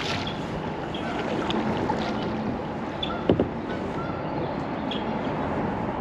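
Kayak gliding along a river, water swishing and lapping against the hull in a steady wash. Two quick knocks come a little past halfway, and short high chirps sound now and then.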